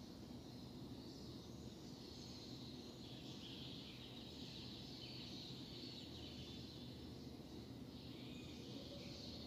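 Faint outdoor ambience: a steady low rumble with distant birds chirping faintly.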